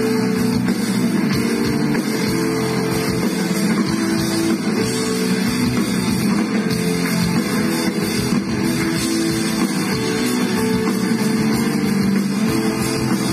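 Live rock band playing an instrumental passage with no vocals: guitars, bass and drum kit over held chords.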